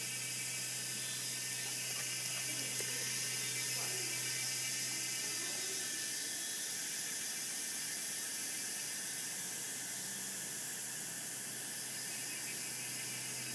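Steady background hiss with a constant low hum underneath, unchanging throughout.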